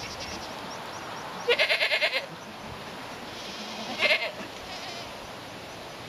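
Dairy goats bleating twice: a loud, wavering bleat about one and a half seconds in and a shorter one about four seconds in.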